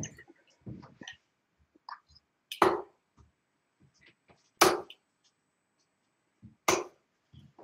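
Three steel-tip darts striking a bristle dartboard one after another, sharp thuds about two seconds apart.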